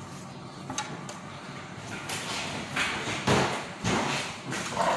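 Handling noises: a light knock just under a second in, then a few seconds of rustling and dull thuds as someone works with things and moves about.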